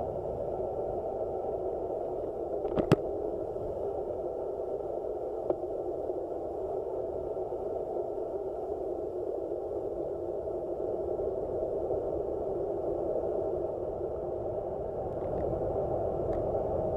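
Steady rushing noise of wind and road passing a handlebar-mounted camera on a road bike rolling downhill at speed. A sharp click comes about three seconds in, and a fainter one a couple of seconds later.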